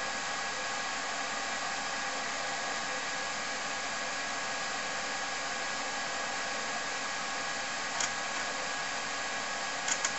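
Steady whirring of a TRS-80 Model 4 computer and its floppy drives running while BASIC loads from disk. A few short clicks come near the end, about eight and ten seconds in.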